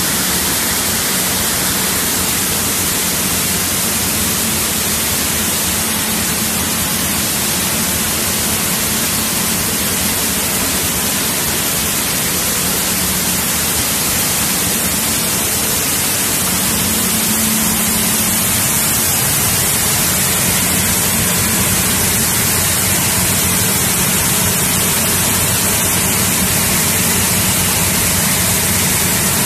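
Soybean cleaning line running: air-screen cleaner, gravity separator and destoner machinery giving a steady, loud rushing noise with a low hum underneath.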